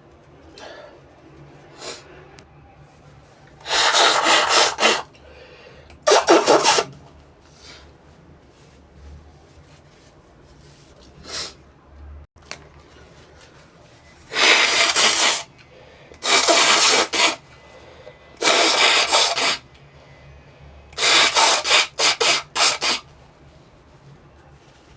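Brush bristles rubbing harshly close to the microphone in six loud spells of about a second each, the last one broken into several quick strokes, as the brush is worked in and around the nostrils to bring on a sneeze.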